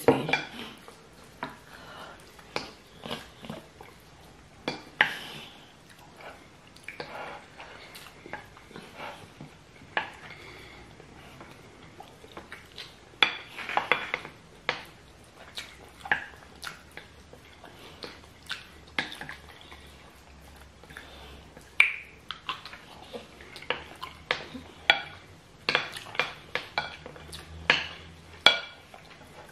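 Small wooden spoons scraping and knocking against plates as rice and stew are scooped up, in irregular clicks and scrapes.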